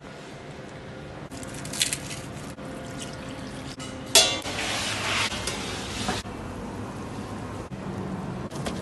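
Wet kitchen sounds from meat being mixed in its marinade in a steel pot. About four seconds in comes a sharp metallic clank of the pot's lid, followed by about two seconds of hissing from the pot.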